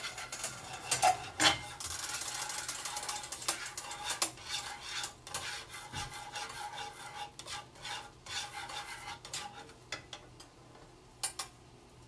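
Wooden chopsticks stirring and scraping minced garlic in hot oil in a nonstick frying pan, with the garlic sizzling and the chopsticks tapping the pan. The stirring dies away about ten seconds in, followed by two sharp clicks as the chopsticks are laid on the pan.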